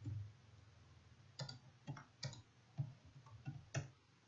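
Computer keyboard being typed on: several separate, irregularly spaced keystroke clicks, starting about a second and a half in.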